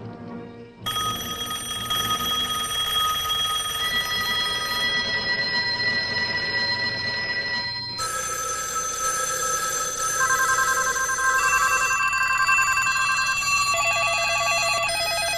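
Many telephones ringing at once in a layered collage of rings, starting about a second in. Steady ringer tones and fast trilling rings join and drop out every few seconds, so the mix keeps shifting.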